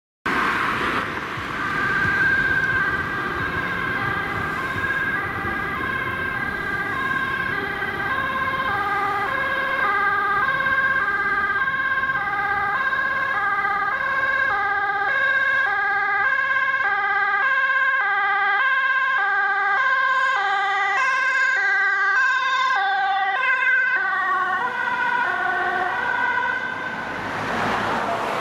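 Two Dutch ambulances' two-tone sirens alternating high and low, out of step with each other, over a steady high tone. Their pitch drops as they go past, and the sirens stop near the end, leaving the noise of a vehicle driving past.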